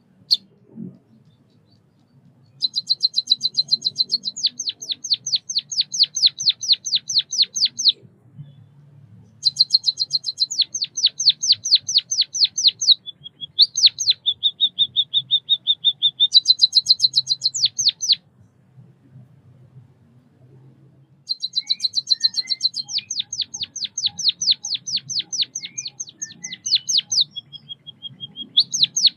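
White-headed munia (Lonchura maja) singing: three long bouts of rapid high chirps with short pauses between them. Two of the bouts end in a drawn-out buzzy trill.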